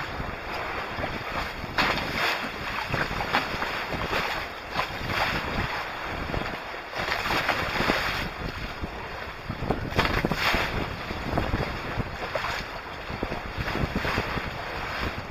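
Wind buffeting the microphone over water rushing and splashing along the hulls of a small trimaran under sail in steep, choppy waves. The splashing swells into louder surges every two to three seconds.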